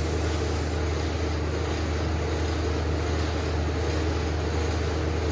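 TIG welder running steadily: a constant low electrical hum with an even hiss from the arc as heat is put into a broken bolt and the bolt welded onto it for extraction.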